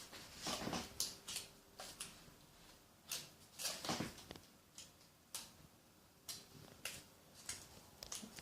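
Computer keyboard keys being pressed, a string of irregular clicks and clacks with short pauses between them and a few louder clusters.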